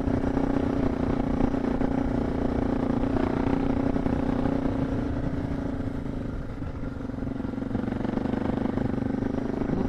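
Suzuki DR650's single-cylinder four-stroke engine pulling steadily up a steep dirt climb. Its note sags briefly about two-thirds of the way through, then picks back up.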